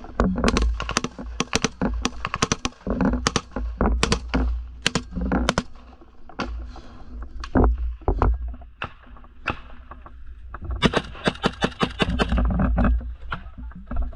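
Close-range rifle fire: a rapid, irregular string of sharp shots with a faster run of shots about eleven seconds in.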